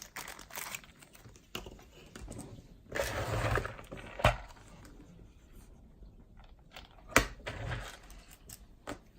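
A broken plastic car key and a replacement key shell being handled, giving scattered clicks, rattles and rustles, with sharp clicks about four and seven seconds in.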